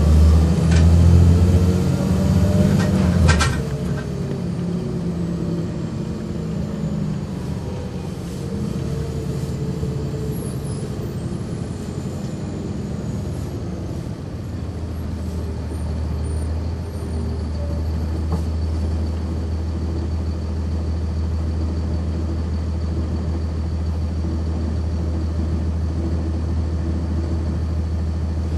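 Heard from inside a 1999 NovaBus RTS transit bus: its Cummins ISC straight-six diesel pulls loudly for about three seconds, then there is a brief sharp noise as it drops back. The engine and driveline pitch falls away as the bus slows, and from about halfway it idles steadily.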